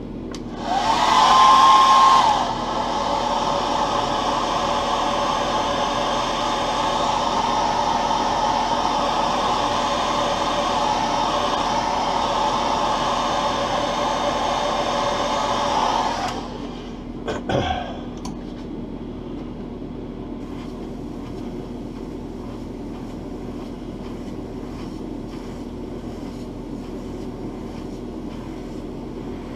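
Hand-held hair dryer blowing on a freshly airbrushed lure to dry the paint: its motor whines up as it switches on, runs steadily for about fifteen seconds, then cuts off. A short clatter follows, then a steady low hum.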